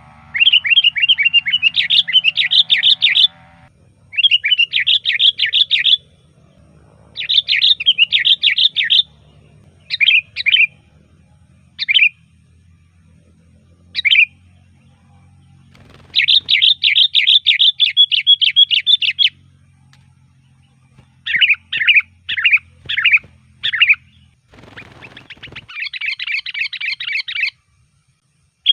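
Sooty-headed bulbul (kutilang) singing: loud, rapid trilled phrases of two or three seconds each, broken by pauses and a few short single calls. A brief rough noise comes just before the last phrase, over a faint low hum.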